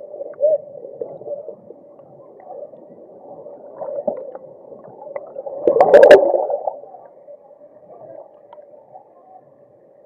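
Muffled underwater sound of churning stream water and rushing bubbles, heard with the camera under the surface. A loud knock and surge of turbulence comes about six seconds in.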